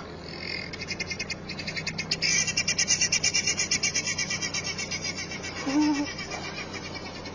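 Rapid, rhythmic bird chirping, about six notes a second, swelling over a few seconds and then fading, over a steady low hum. A brief low call comes near the end.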